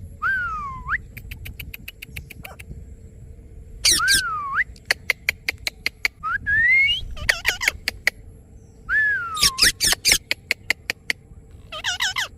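Indian ringneck parrot whistling: several swooping whistles that dip and then rise, one rising whistle, and runs of sharp clicks between them. A harsher call comes near the end.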